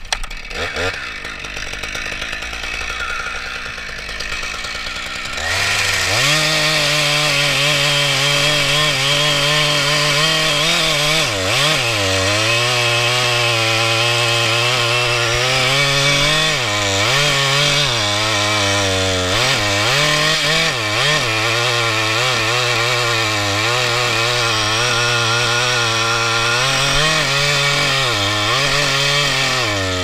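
Husqvarna two-stroke chainsaw, running quieter for about the first five seconds, then at full throttle cutting into the oak trunk, its pitch dipping and recovering again and again as the chain loads up in the wood.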